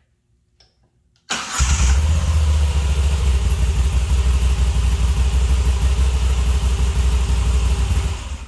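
Moto Guzzi V7 850 Special's air-cooled transverse V-twin cranked on the electric starter, catching about a second in and then idling steadily, before it is switched off near the end.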